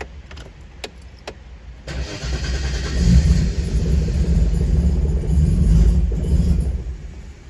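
A 1988 Holden VL Turbo's Nissan RB30 turbocharged straight-six is being cold-started on E85 ethanol. The first two seconds are quieter, with a low rumble and a few clicks. About two seconds in the engine catches and runs loudly and unevenly for several seconds, then drops away near the end, not yet running cleanly.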